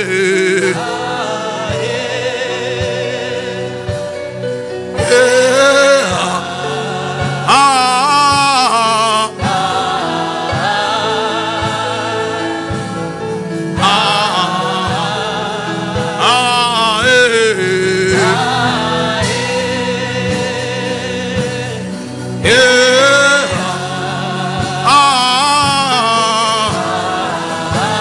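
Gospel song: a voice sings long phrases with a wavering vibrato over sustained chords that hold throughout.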